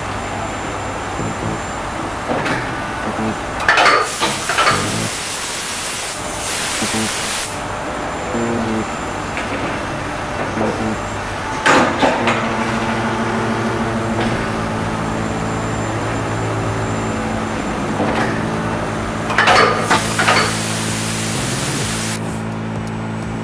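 Injection moulding machine running with a steady hum, with sharp clanks as its sliding safety door and mould move, three in all. Twice a hand-held air spray gun hisses, blowing mist onto the open mould.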